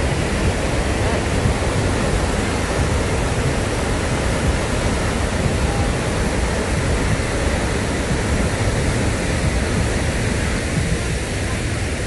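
Sopheakmit waterfall's rapids: a loud, steady rush of churning white water.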